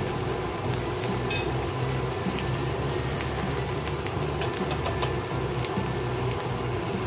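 Sliced onions, curry leaves and garlic and ginger paste sizzling steadily in hot oil in a wok, with scattered small crackles, over a low steady hum.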